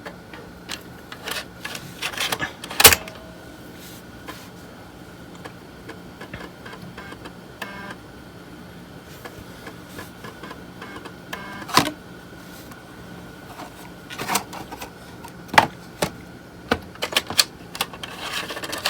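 Clicks and knocks of 3.5-inch floppy disks being handled and swapped in a floppy drive, over a steady hum. The loudest click comes about three seconds in, and a run of clicks comes near the end.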